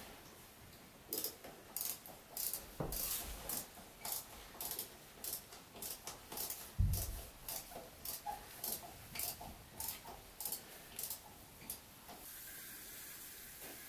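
Screws being driven by hand into cement backer board: a run of sharp clicks about two a second, with one dull thump about seven seconds in. The clicks stop near the end.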